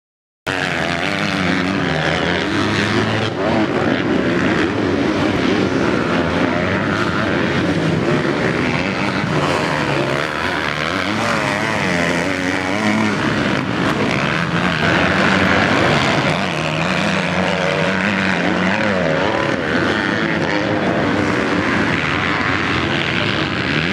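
Motocross bike engines revving hard, rising and falling in pitch as the bikes accelerate and shift on a dirt track. The sound cuts in about half a second in.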